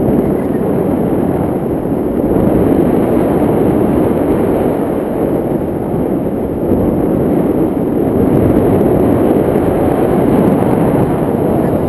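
Loud, steady wind rushing and buffeting over an action camera's microphone as a tandem paraglider flies, a dense low rumble with no breaks.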